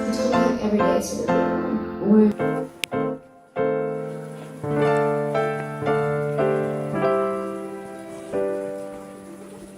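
Piano music: a quicker run of notes, then slower held chords that fade out toward the end.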